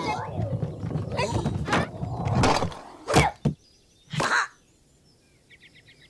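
Cartoon sound effects and creature vocal noises. Two sharp thunks land about three and four seconds in, followed by a few faint quick ticks.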